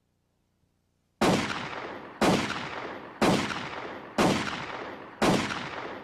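Five gunshots about a second apart, each with a long echoing decay.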